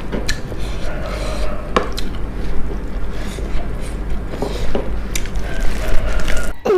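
Close-up chewing of crisp fried food, with irregular sharp crunches over a continuous wet chewing sound.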